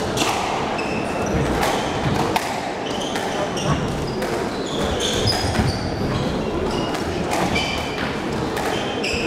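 Squash rally: the ball smacks off rackets and walls about once a second, with shoes squeaking on the wooden court floor between shots.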